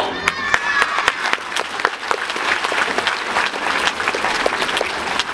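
Audience applauding, a dense steady clapping that starts as the dance music stops.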